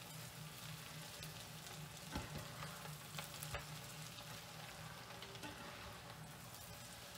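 Russet potatoes and onions frying in butter and oil in a deep frying pan, sizzling steadily while a slotted spatula stirs and turns them, with a few knocks and scrapes of the spatula against the pan.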